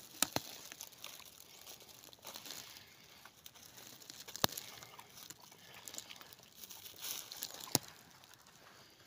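Faint rustling and crunching of dry leaf litter and undergrowth, with three sharp cracks: one just after the start, one midway and one near the end.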